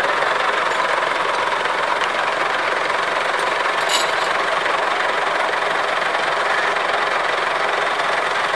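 Diesel tractor engines running steadily at idle, with a single brief clink about four seconds in.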